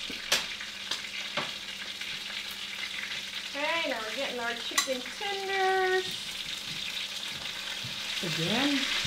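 Chicken tenders sizzling steadily as they pan-fry in hot oil, with a few sharp clicks of a utensil against the pan as pieces are lifted out onto a plate.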